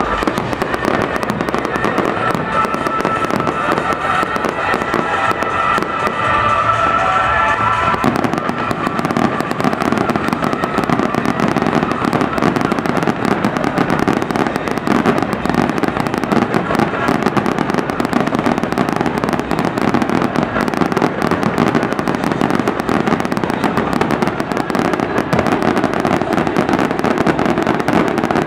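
Fireworks display going off in a dense, continuous barrage of bangs and crackling. In the first eight seconds a few held whistling tones sound over it.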